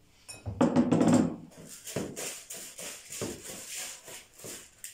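Uncooked rice grains rustling and rattling as a hand turns them with salt in a plastic bowl, with a louder, briefly pitched sound about a second in.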